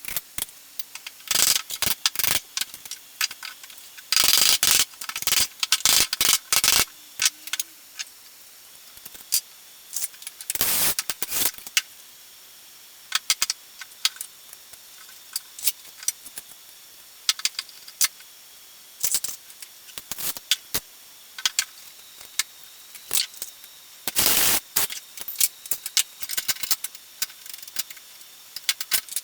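Small metal parts clinking and rattling in irregular bursts, with many sharp clicks, the loudest bursts a few seconds in, around ten seconds in and near the end.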